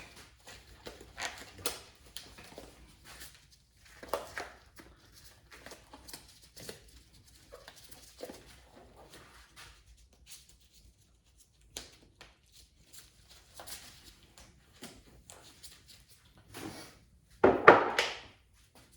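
Scattered light handling noises, short rustles and clicks, as disposable gloves are pulled on and parts are handled, with a louder rustle lasting about a second near the end.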